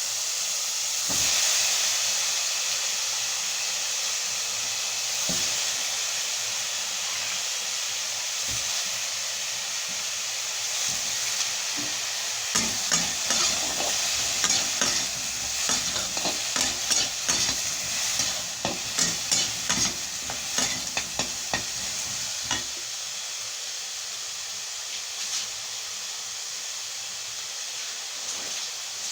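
Vegetables frying in hot oil in a pan, a steady sizzling hiss. From about halfway through, for roughly ten seconds, a utensil stirring the vegetables adds a quick run of clinks and scrapes against the pan.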